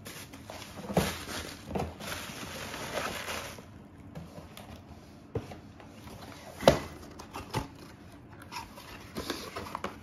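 Packaging and a cardboard box being handled: a steady rustling for the first few seconds, then scattered knocks and clicks as items are moved. One sharp knock about two-thirds of the way through is the loudest.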